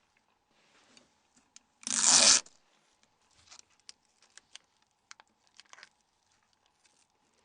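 A short, loud tearing sound about two seconds in, as of protective plastic film being peeled off, followed by faint scattered clicks and rustles of small phone parts being handled.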